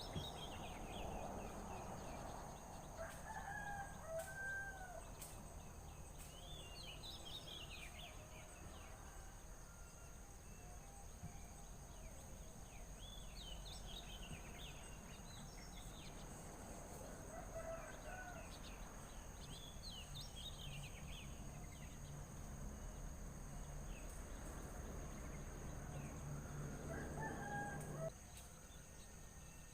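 Birds calling outdoors: scattered clusters of quick high chirps and a few lower, curving call notes, over a steady low background hum that stops near the end.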